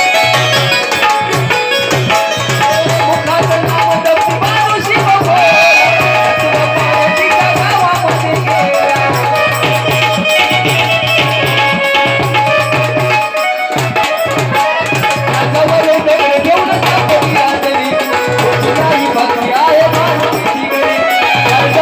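Loud traditional folk music: a hand-drum beat pulsing steadily under a wavering melody line, with no clear words.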